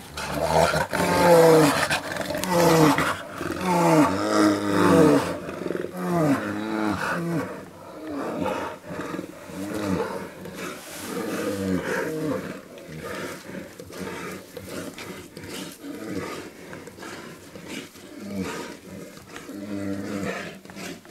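A bear calling in a rapid series of short pitched calls, about one and a half a second, each one arching and falling in pitch. The calls are loudest over the first five seconds and go on more faintly after that.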